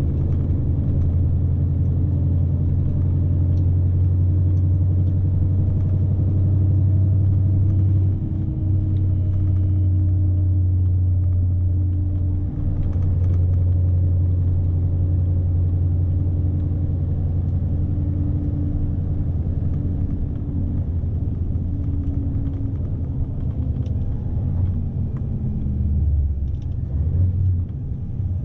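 Cab interior of a Scania S520 truck under way: the V8 diesel drones steadily under the road and tyre rumble. The engine note falls away about three quarters of the way through, as the revs drop.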